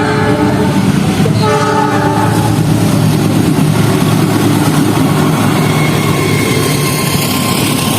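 Diesel locomotive horn, the multi-tone horn of an Indonesian CC 206, giving two short blasts in the first couple of seconds as the semboyan 35 horn signal. Under and after the blasts, the train keeps up a steady rumble of engine and wheels on the rails.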